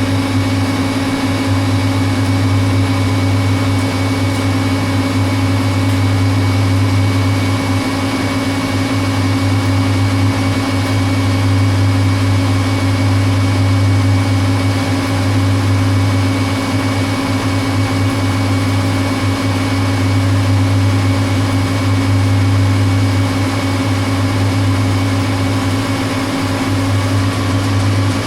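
Metal lathe running steadily under power with a constant deep hum while the tool takes a heavy 1.2 mm-deep turning cut along round bar stock.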